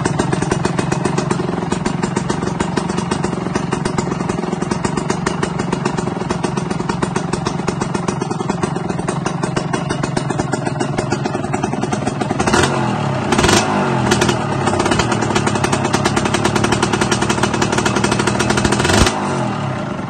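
Yamaha L2 two-stroke single-cylinder engine running through an aftermarket DT-style downpipe exhaust. It holds a steady idle for the first half, then takes a series of throttle blips from about twelve seconds in until near the end.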